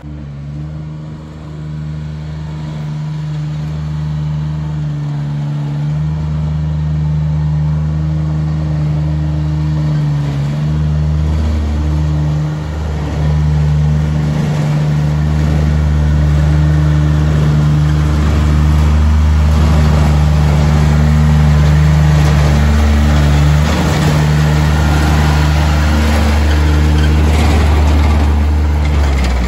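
Engine of a Watanabe tracked mini dumper running loudly and steadily close up as the machine drives along, its note stepping down and back up several times.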